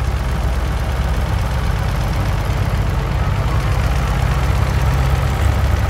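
Vintage 1950s tractor engine running slowly at low speed, a steady, deep engine note.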